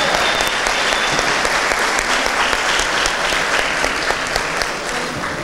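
Audience applauding, a steady patter of many hands clapping that fades a little near the end.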